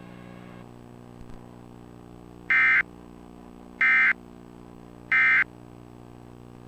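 Emergency Alert System end-of-message code: three short, identical bursts of digital data tones, a little over a second apart, over a steady low hum. The bursts signal the end of the EAS test message.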